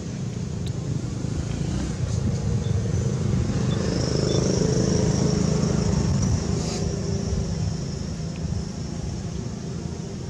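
A motor vehicle passing by: a low rumble that grows louder over the first few seconds, peaks around the middle and then fades.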